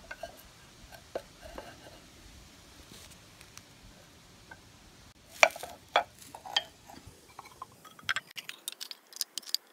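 Hardwood strips of cherry and maple being flipped over by hand and set down on steel pipe clamps, giving scattered light wooden clacks and knocks. The loudest few come about five to six and a half seconds in, followed by a quick run of clicks near the end.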